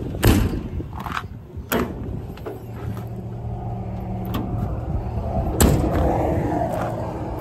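Utility-body compartment doors on a pickup's service bed being swung and shut: sharp metal clunks about a third of a second in, around two seconds in, and again at about five and a half seconds.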